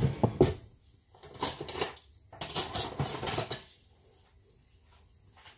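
A metal fork clinking and scraping against a ceramic bowl while stirring thick yema custard sauce, in three short runs of quick clinks.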